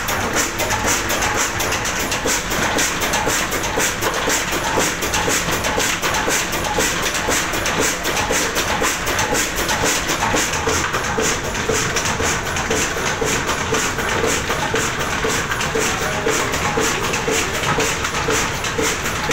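Old Ruston Hornsby stationary diesel engine running steadily, with an even, rapid mechanical beat.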